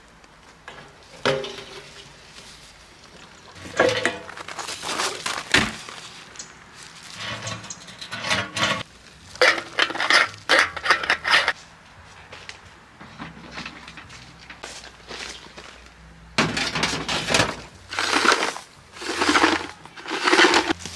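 Knocks, scrapes and rattles as a red plastic jerry can of kerosene and a kerosene heater's metal fuel tank are handled and the tank is refilled. Near the end, crunching footsteps on gravel, about one a second.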